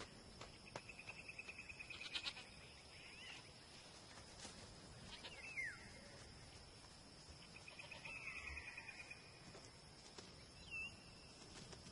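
Faint high-pitched animal calls: a few short falling chirps and two fast rattling trills, one about a second in and one about two-thirds of the way through, over a faint steady high hiss.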